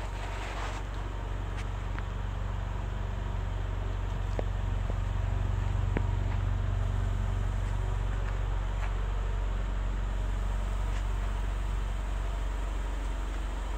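2011 Mitsubishi Eclipse's 2.4 L four-cylinder engine idling steadily.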